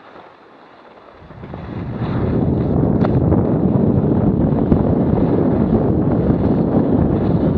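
Wind buffeting an action camera's microphone as a skier gathers speed downhill. The rumble swells about a second in and then stays loud and steady.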